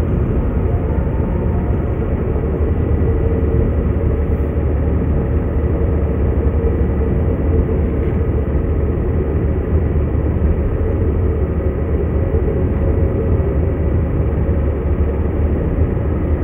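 Steady low road and engine rumble inside a moving car's cabin, heard through a dashcam microphone.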